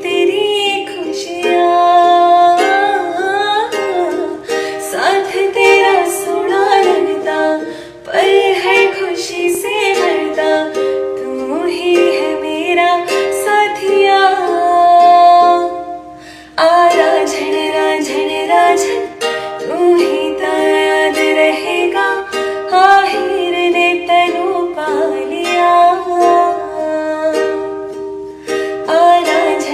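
Romantic song music: a melody line with gliding pitch over a steady accompaniment. It drops out briefly about 16 seconds in.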